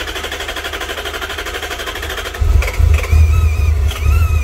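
The starter cranks the supercharged Toyota 1UZ-FE V8 in a steady rapid rhythm while fuel comes through a system that had no fuel pressure. About two and a half seconds in, the engine catches and runs much louder, its speed wavering up and down.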